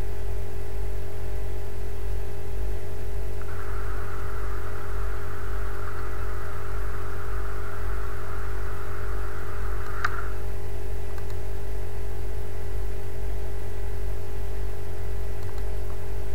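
Steady low electrical hum and hiss of the recording's background noise. A higher hiss comes in a few seconds in and cuts off about ten seconds in with a single sharp click.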